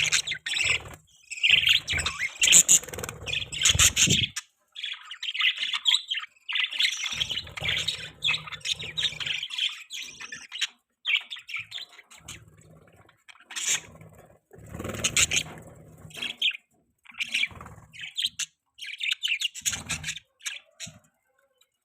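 Budgerigars chirping and warbling in long, rapid bouts of chatter with short pauses in between.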